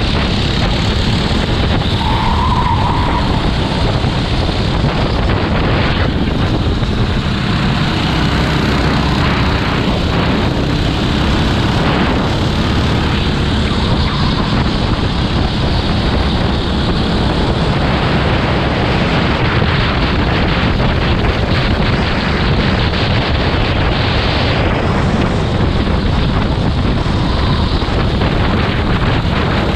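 Go-kart running at speed, its engine mostly buried under heavy wind buffeting on the microphone; a steady, unbroken rush of noise.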